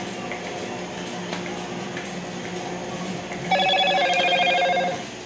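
Milking machine running with a steady hum. Past the middle, a loud pulsing electronic alert tone rings for about a second and a half, then stops suddenly.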